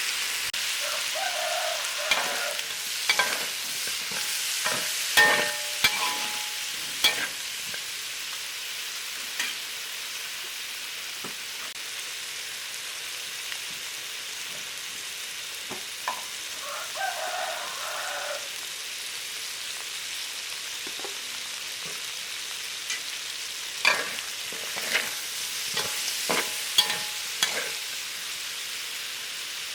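Chicken and lemongrass stir-frying in a hot pan with a steady sizzle, while a utensil stirs the food. In two spells, a few seconds in and again near the end, it knocks and scrapes sharply against the pan.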